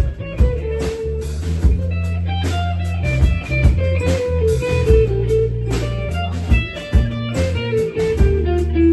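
Small band playing a slow song: electric guitar over held bass guitar notes, with steady drum hits.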